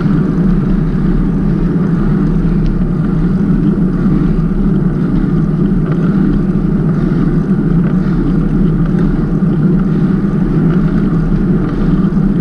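Steady rush of wind buffeting the microphone on a moving bicycle, mixed with low road rumble.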